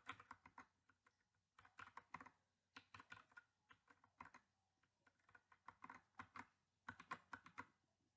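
Faint keystrokes on an HK Gaming GK61 60% mechanical keyboard with red switches: short clusters of a few key clicks, coming every second or so.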